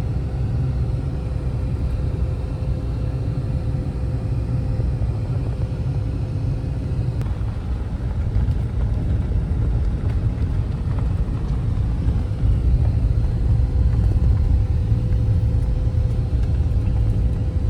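Steady low rumble of a car driving, engine and road noise heard inside the cabin. It grows somewhat louder in the later part.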